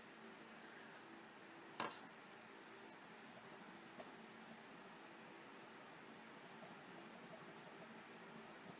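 Faint scratching of a Prismacolor colored pencil shading on sanded UART paper. There is a sharp click about two seconds in and a lighter one about four seconds in.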